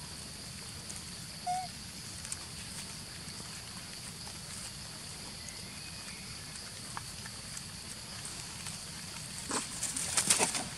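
Macaques scrambling and running over dry leaves and grass, a brief burst of crackling rustles near the end. Before that there is a short squeak and only a steady outdoor background hum.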